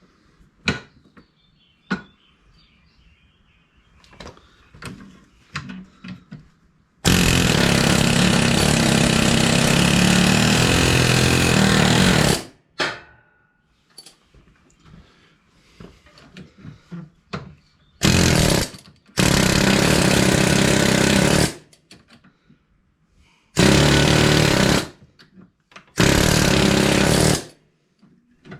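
A hammering power tool run in five bursts of a few seconds each, the first and longest about seven seconds in, working on the prop shaft's universal joints; light clinks of metal tools come before it.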